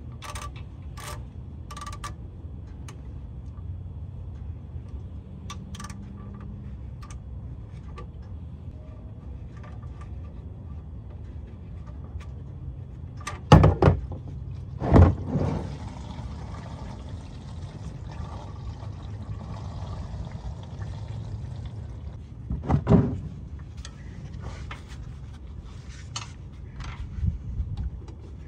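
Ratchet clicking as it loosens the oil drain plug on a Ford Crown Victoria's oil pan, then engine oil pouring in a steady stream into a plastic drain pan. A few loud clunks come about halfway in and again near the end.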